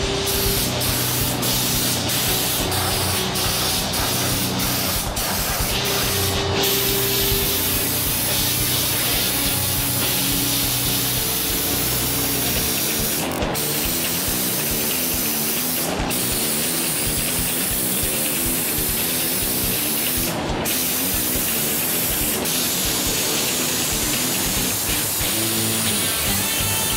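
Raptor Liner air spray gun spraying bed-liner coating: a steady hiss of compressed air and paint, broken by many very short gaps in the first several seconds and by a few brief breaks later on. This is the first coat going onto the bumper.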